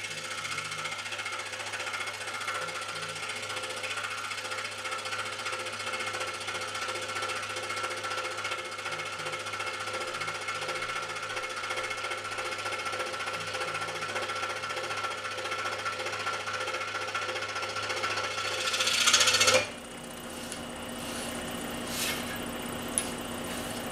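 Scroll saw running and cutting a stack of thin basswood, a steady fast mechanical noise with a constant hum. About twenty seconds in it swells louder, then drops suddenly to a quieter running noise with a couple of sharp clicks.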